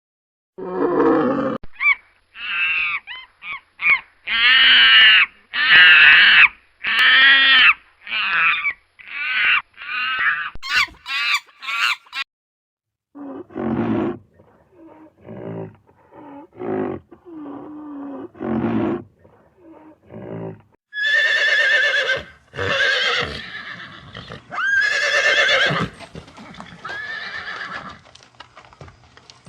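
A series of animal calls, with horses neighing and whinnying: high, quavering calls in separate bursts with short gaps, and lower, quieter calls in the middle.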